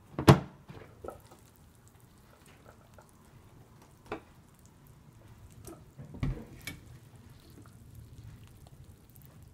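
Lid of a Philips electric multi-cooker being unlatched and lifted off, with a sharp click just after the start. A few fainter clicks and knocks follow, with one heavier thump about six seconds in.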